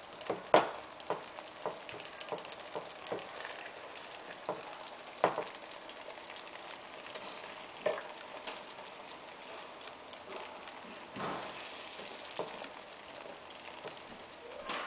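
Eggplant cooking in a thick kashk sauce in a frying pan, with a steady sizzle, while a spatula presses, turns and knocks against the pan. There are sharp clacks about every half second in the first few seconds, then only now and then.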